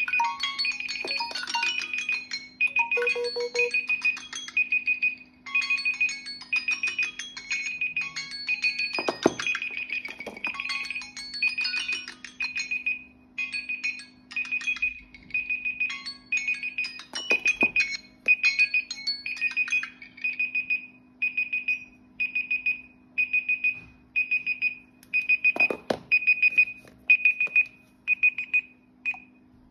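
Several smartphone countdown timers ringing at once after running out, their melodic alarm tones and beeps overlapping. They drop out until a single high beep, repeating about twice a second, is left and stops near the end. A few brief knocks come as the phones are handled.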